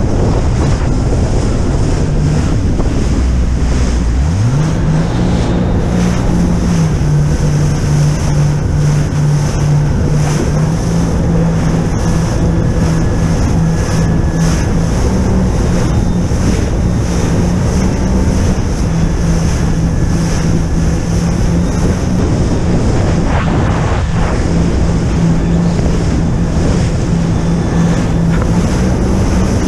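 Jet ski engine revving up about four seconds in, then running at high steady revs with its pitch wavering slightly, over heavy wind buffeting on the microphone and rushing water.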